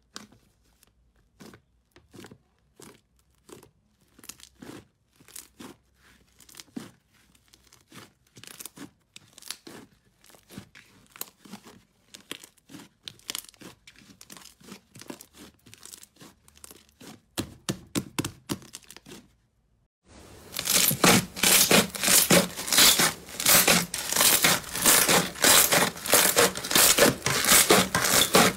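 Thick slime being kneaded and squeezed by hand, crackling and popping: soft, separate crackles that grow denser. After a brief pause near the two-thirds mark, they turn into much louder, dense crackling.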